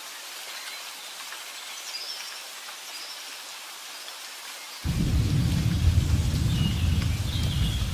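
Steady rain falling. About two-thirds of the way in, a deep rumble of thunder sets in suddenly and keeps rolling, much louder than the rain.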